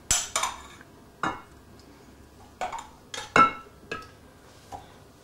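Kitchen utensil clinking and scraping against a bowl and baking dish as the sauce mixture is spooned out, a run of separate, irregular clinks, a few with a short ring.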